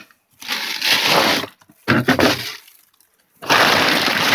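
Chicken bones being tipped out of a plastic bag into a container, clattering and rustling in three bursts, the last the longest.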